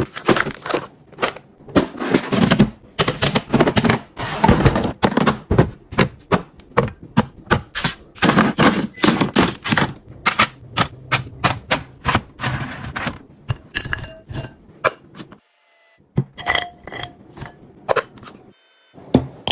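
Food containers and packages being handled and set down while a refrigerator is restocked: a quick run of knocks, clacks and rustling. In the last few seconds it thins out to scattered clicks and a few light clinks.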